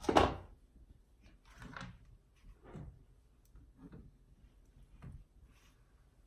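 Handling noise as a small speaker and its cables are fumbled with: one loud clunk at the start, then several softer knocks and rustles.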